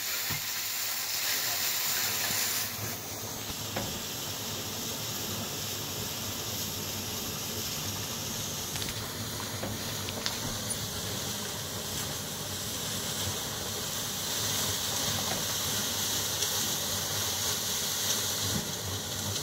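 Water from an uncapped artesian well, flowing freely under about 6 psi, gushing from the open casing and splashing, heard as a steady hiss and rush. The high hiss is stronger for the first couple of seconds and again for a few seconds near the end.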